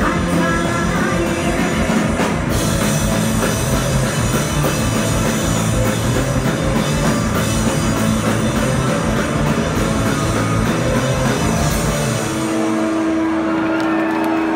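Live rock band playing loud, with electric guitar, drum kit and a woman singing. About twelve seconds in, the drums stop and a single held note rings on as the song ends.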